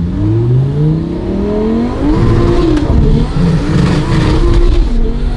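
Lamborghini Murciélago V12 heard from inside the cabin, revving up hard under full acceleration and then dropping in pitch at a gear change about two seconds in. After the shift the revs hang nearly level with popping: the engine management is sensing fuel and retarding the timing, so the car goes limp in third.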